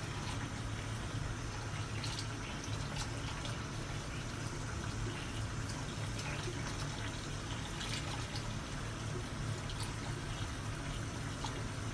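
Bathroom faucet running a steady thin stream into a sink basin, with faint scattered soft clicks of soapy hands being rubbed together.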